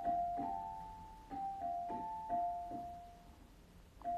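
Background music: a slow keyboard melody of single ringing notes, dying away about three seconds in before another note starts near the end.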